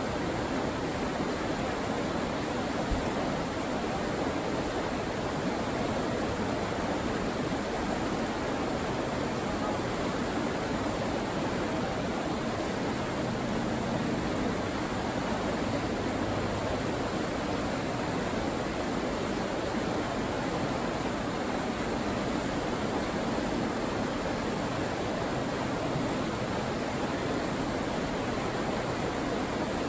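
Fast, shallow river rapids rushing over rocks: a steady, even wash of white water.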